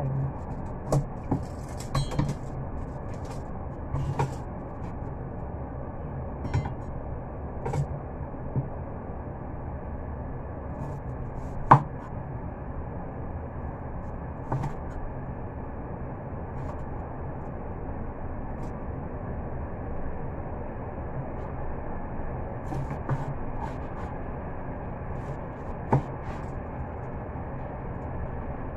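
Meat cleaver slicing raw meat on a cutting board: scattered, irregular knocks of the blade striking the board, several close together at the start and the loudest about twelve seconds in, over a steady low rumble.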